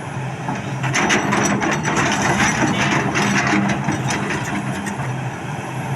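Excavator at work: a steady engine hum under dense, irregular clattering and clicking.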